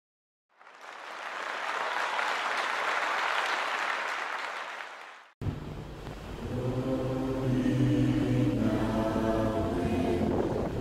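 A swell of applause that fades out, then, after a sharp break about five seconds in, a choir singing a cappella in long held chords.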